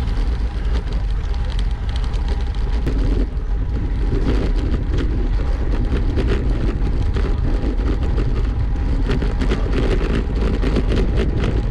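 Wind rushing over the microphone of a camera riding on a road bicycle in motion, mixed with steady tyre and road noise. Frequent small clicks and rattles come through, thickest from about four seconds in.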